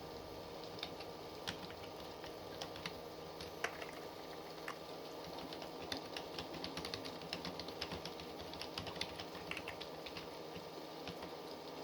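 Typing on a computer keyboard: scattered single keystrokes at first, then a quicker run of keystrokes from about halfway through.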